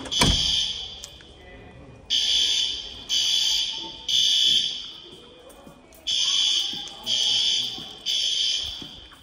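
System Sensor L-series fire alarm horns sounding the temporal-three evacuation signal: three blasts about a second apart, then a short pause, repeating. A door clunks shut right at the start.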